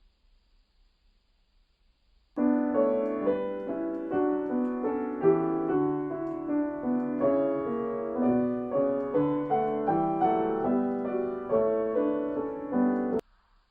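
Near silence for about two seconds, then a piano playing a dense passage of quickly struck chords and notes, which cuts off suddenly near the end.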